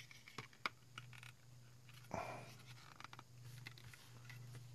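Faint clicks and light scrapes of a small plastic charger case being handled and pried apart with a hobby knife, with one short louder noise about two seconds in.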